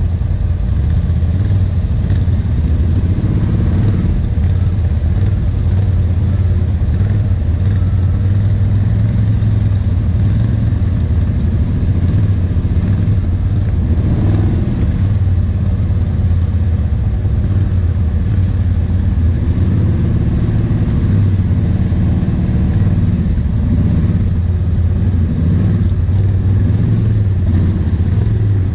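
Kawasaki KVF 750 Brute Force quad's V-twin engine running at low revs, its pitch rising and falling a little now and then, as the quad crawls through a muddy rut.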